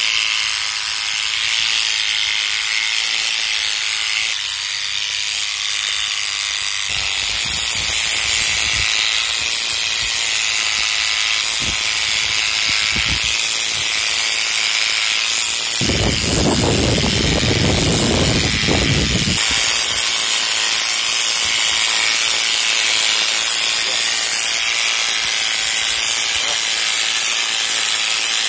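Corded electric animal clipper running with a steady buzz as it shears through a dog's thick, woolly coat. A few seconds past the middle, a louder low rumbling joins in.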